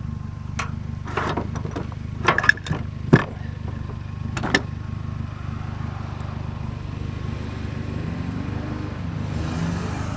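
Car running steadily with a low rumble, with several sharp knocks and clatters in the first few seconds.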